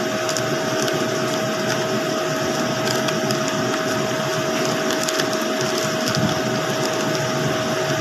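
Steady whirring drone with a constant hum tone, like a running fan or motor, with a few faint short clicks and rustles as a cardboard box is opened.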